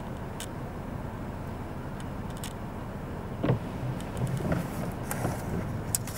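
Low, steady hum of a car heard from inside its cabin. A few light, irregular knocks and clicks come in the second half, the loudest about three and a half seconds in.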